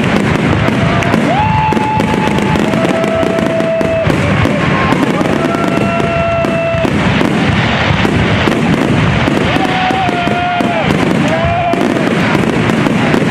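Fireworks display going off in a dense, continuous barrage of crackling and popping, with several held whistling tones about a second long sounding over it.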